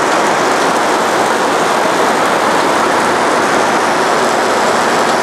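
Model 230 vertical bandsaw, fitted with a 3/4-inch scallop-edge knife blade running at about 3,000 feet per minute, slicing through starch-based foam with a loud, steady hiss.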